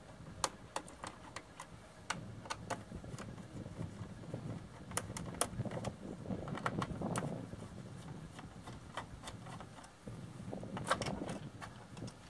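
Screwdriver working out the lid screws of a clear plastic electrical enclosure: scattered small clicks and scrapes, with denser handling rustle about six to seven seconds in and again near eleven seconds.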